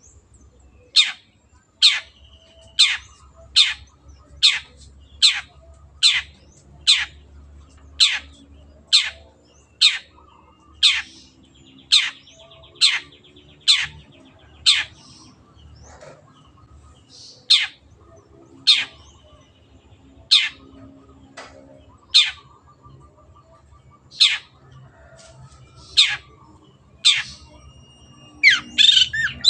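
Long-tailed shrike calling a long series of short, sharp single notes, about one a second, with a brief pause midway. Just before the end it breaks into a dense, harsh chattering song.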